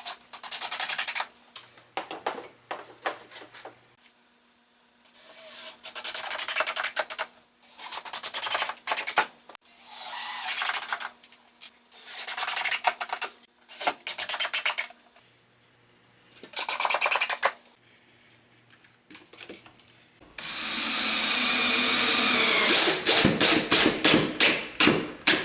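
Power driver running in a series of short bursts, driving screws to fasten a wooden ledger board, with pauses between screws. Near the end comes one longer run that turns into a fast rattle of clicks.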